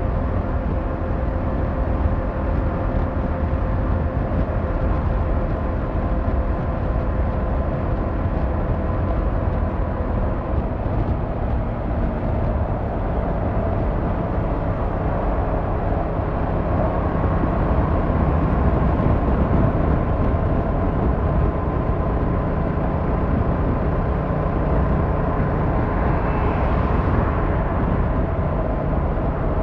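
Yamaha MT-07's 689cc inline-twin engine and exhaust running steadily under the rider, heard from on the bike. It grows a little louder for a few seconds about two-thirds of the way through.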